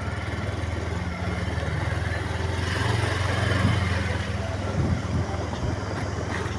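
A vehicle engine running steadily at a low, even pitch, with road and traffic noise that swells around the middle.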